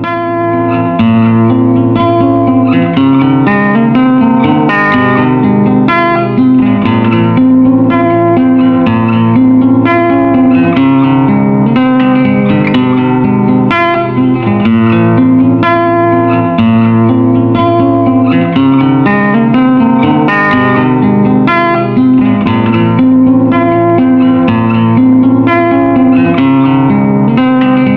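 Guitar music: a steady run of plucked notes.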